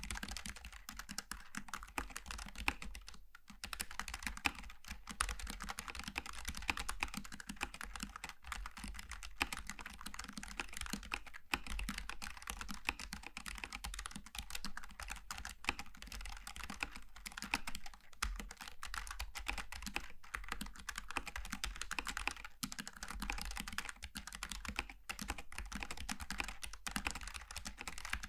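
Continuous fast typing on a Logitech G915 TKL low-profile mechanical keyboard with GL Tactile switches, a dense stream of key clicks with one brief pause about three seconds in.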